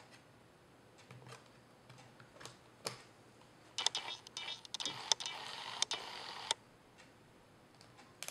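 Light clicks and taps of a replacement laptop LCD panel being handled and settled into the plastic lid frame: a few scattered clicks, then about three seconds of denser clicking and rustling from about four seconds in.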